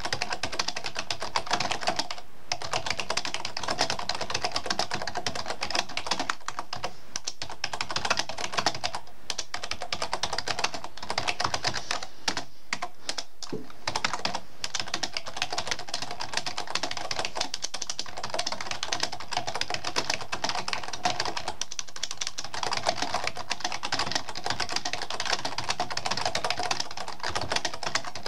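Computer keyboard being typed on fast: a dense, continuous stream of key clicks broken by a few short pauses.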